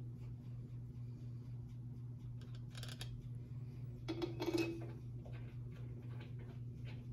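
Steel head bolts clinking and scraping against the cast-iron cylinder head as they are set into their holes and started by hand. There are two short metallic rattles, about three seconds in and a louder one about four and a half seconds in, over a steady low hum.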